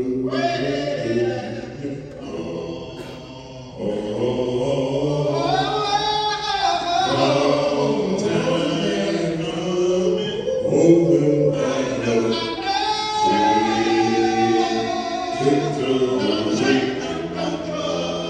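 Male vocal group singing in close harmony into handheld microphones, a lead voice over the others' backing. It grows fuller and louder about four seconds in.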